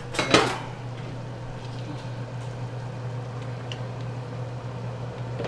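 A stainless steel pot clanks on the stovetop a few times in the first half-second, then a steady low hum carries on over a pot boiling on the stove.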